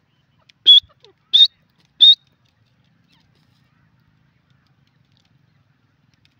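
Grey francolin giving three short, sharp, high-pitched calls about two-thirds of a second apart, each with a slight upward inflection.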